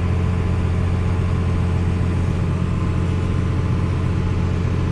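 Farm machinery diesel engine running at a steady speed with a deep, even hum while soybeans are unloaded into a truck bed.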